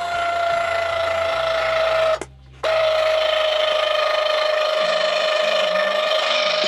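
Electric tongue jack motor on a travel trailer whining steadily as it raises the coupler off the hitch ball. It stops briefly about two seconds in, then runs again, its pitch sagging slightly as it works.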